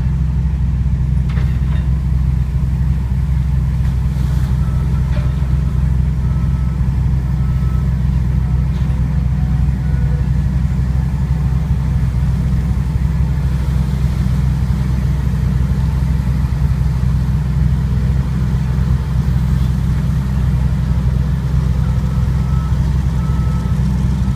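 Heavy diesel engine of an amphibious marsh excavator running steadily under load, a continuous low rumble. A backup alarm beeps in short repeated pips twice, a few seconds in and near the end.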